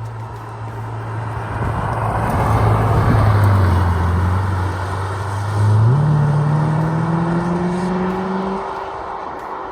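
Ferrari F8 Tributo's twin-turbo V8 running as the car drives by. The note holds steady while it grows louder, then the revs jump up about six seconds in and climb slowly before the sound fades away.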